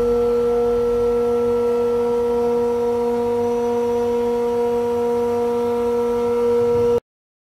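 Bitzer HSN6461-50-40P semi-hermetic screw compressors running: a steady machine hum with a whine made of several fixed tones over a low rumble. It cuts off suddenly near the end.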